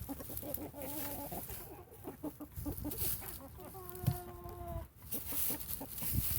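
Domestic chickens clucking in short calls, with one drawn-out call lasting about a second, a little under four seconds in.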